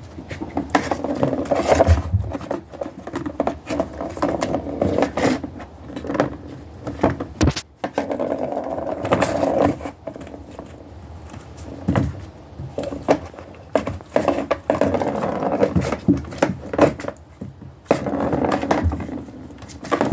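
Kittens wrestling and scrambling at play: repeated scratching, scraping and light thumps as they tumble over each other and the floor, in irregular flurries.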